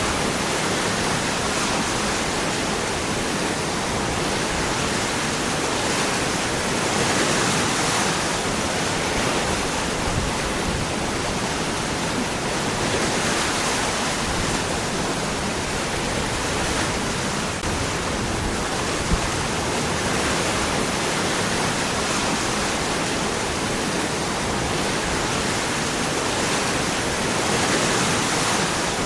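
Waterfall pouring over rocks: a steady, full rushing of water that swells and eases gently every few seconds.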